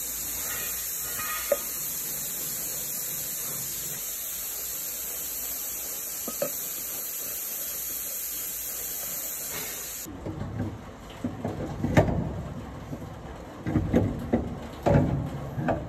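A steady hiss with a couple of small clicks. About ten seconds in, the hiss cuts off and irregular metallic clanks and knocks follow, from gears and parts being handled inside an open gearbox case.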